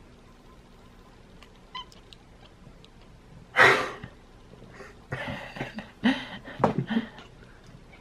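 Domestic cat vocalizing: a faint short call about two seconds in, then a loud harsh burst near the middle and a run of shorter cries toward the end.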